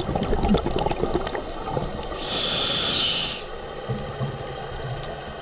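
A scuba diver breathing through a regulator underwater: crackling exhaled bubbles at first, then a hissing inhale about two seconds in, lasting just over a second, followed by quieter bubbling.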